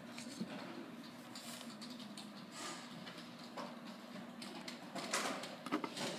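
Stepper motor wired to a 3D-printer control board giving a faint, low steady hum, with scattered light clicks and rustles of the motor and wiring being handled, busier near the end.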